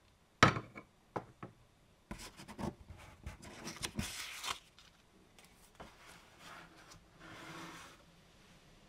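Hard plastic parts and packaging of a KitchenAid shave ice attachment handled on a tabletop: a sharp knock about half a second in, a few clicks, then a cluster of clicks and rubbing, and a soft slide near the end.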